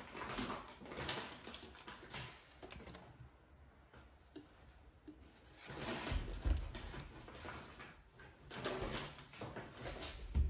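Groceries being unpacked by hand: rustling and clicking handling noise, with a low thud about six seconds in as full plastic cola bottles are set down on a glass ceramic cooktop.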